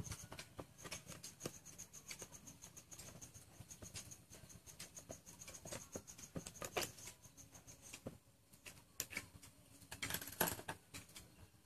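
Light plastic clicks, taps and rustles from the shell and headgear of a welding helmet being handled and taken apart, with a louder clatter near the end as parts are set down on the table.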